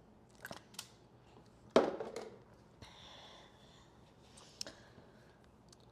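Quiet room with a few small clicks and one sharp knock about two seconds in, followed by a short rasping sound and a soft breath or sniff.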